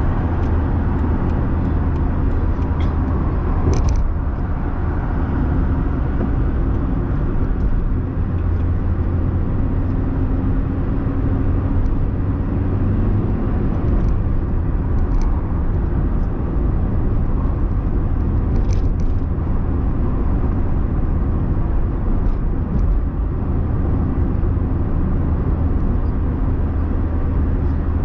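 A car driving along a city road, heard from inside its cabin: a steady low drone of engine and tyre noise. A few faint clicks can be heard about four, fifteen and nineteen seconds in.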